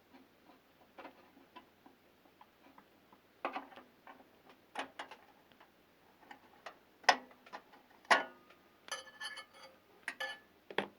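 Irregular small clicks and knocks of a microwave oven's mica waveguide cover plate being pried out and handled inside the cooking cavity, with two sharper knocks about seven and eight seconds in and a short ringing rattle just after.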